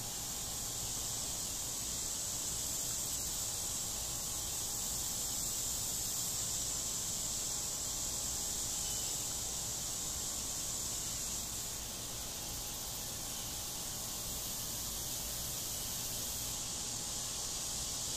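Steady high-pitched outdoor hiss with a faint low rumble beneath, and no distinct events.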